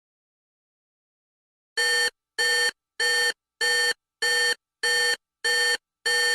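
Electronic alarm beeping: eight short, identical, steady-pitched beeps in an even rhythm, starting about two seconds in.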